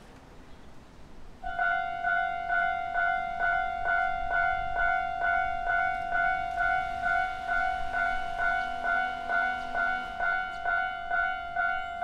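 A Japanese railroad crossing's electronic warning bell starts about a second and a half in. It rings a steady, high, repeating ding a little over twice a second, signalling that a train is approaching and the barriers are about to lower.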